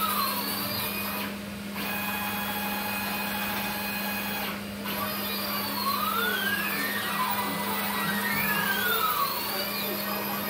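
Stepper motors on a steel gantry CNC machine running a program: whines that rise and fall in pitch as the axes speed up and slow down, several overlapping, over a steady low hum.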